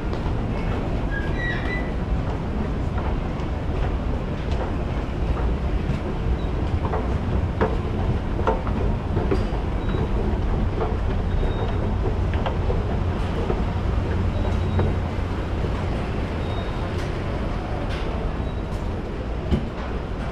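Steady low rumble of an underground subway station, with scattered footsteps and light taps, and a few short high beeps about a second in.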